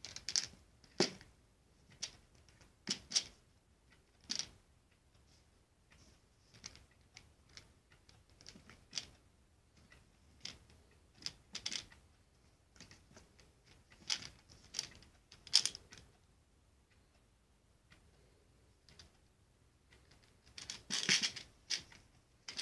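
Hard plastic toy candy dispenser being handled: irregular clicks and knocks of plastic, with a denser rattle near the end.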